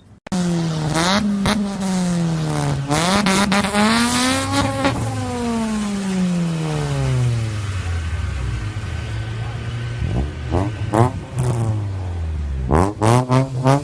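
Car with an aftermarket 'fart can' exhaust tip revving hard: a raspy, buzzy note that climbs in pitch, drops once as at a gear change, climbs again and then falls away. It then settles to a steady low note, with short revs near the end and a run of quick throttle blips.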